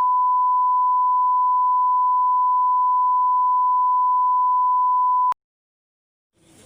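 Loud, steady electronic beep at a single pitch, held for about five seconds, then cut off suddenly with a click.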